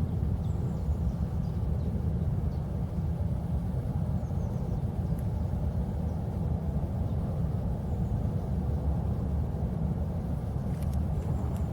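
Steady low rumbling outdoor background noise with a few faint high chirps, and a couple of short sharp clicks near the end.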